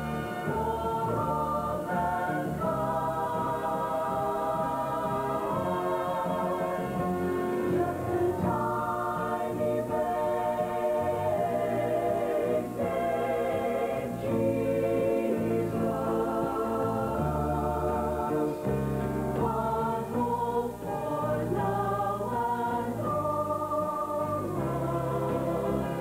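Mixed vocal group of men and women singing a Christmas song in harmony over instrumental accompaniment with a bass line, the notes held and changing continuously.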